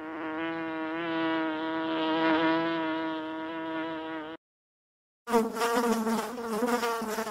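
Bees buzzing: a steady buzz with a slightly wavering pitch, broken by about a second of silence a little after the middle, then a second, lower buzz.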